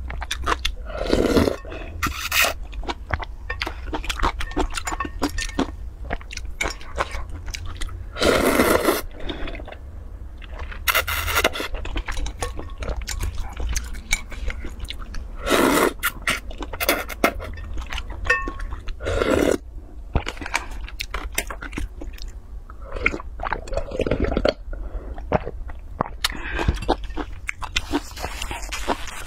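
Noodles and broth slurped from a wooden spoon, several long slurps, between stretches of chewing. Small clicks and scrapes of the spoon and chopsticks against a glass bowl.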